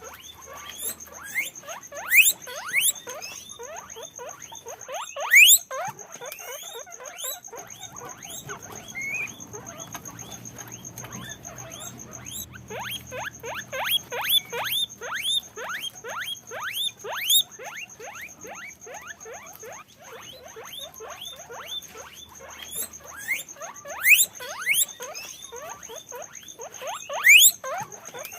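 Guinea pigs squeaking in a dense run of short, quickly repeated calls, with a few louder rising squeals standing out.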